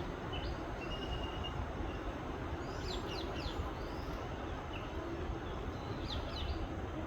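Several birds giving short chirps and quick sweeping calls, in clusters about three seconds in and again near the end, over a steady low rumbling background noise.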